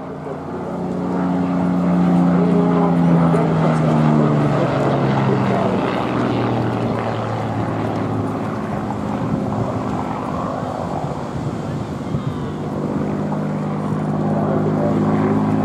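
Hawker Hurricane's Rolls-Royce Merlin V12 engine as the fighter flies past: the engine note peaks and falls in pitch a couple of seconds in as it goes by, then grows and rises again near the end as it comes round.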